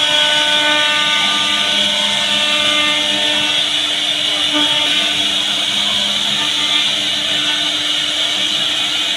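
CNC router spindle cutting a groove in a wooden door panel: a steady high-pitched whine with the noise of the bit cutting through the wood.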